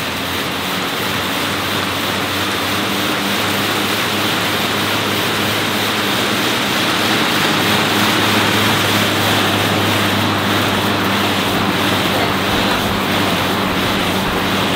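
Assault AirBike's fan whooshing under an all-out sprint, with a steady low hum. It builds over the first several seconds as the fan spins up, then holds steady.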